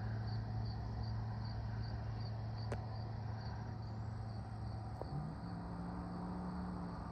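A cricket chirping, about two and a half evenly spaced chirps a second, stopping about five seconds in. Beneath it runs a steady low mechanical hum that shifts higher in pitch at about the same moment, with two faint clicks.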